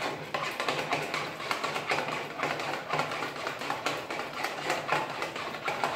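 Eggs and plain yogurt being beaten by hand in a plastic mixing bowl: quick, even clicks of the utensil striking the bowl, about four to five a second.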